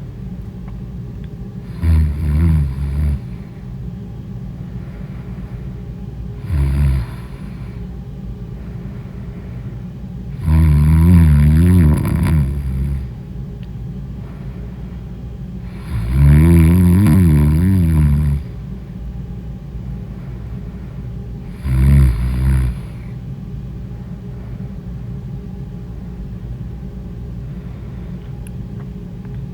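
Loud snoring in deep sleep: five snores at uneven intervals, short ones about two and seven seconds in and about twenty-two seconds in, and two longer, louder ones of about two seconds each with a wavering, fluttering pitch. A steady low hum runs underneath.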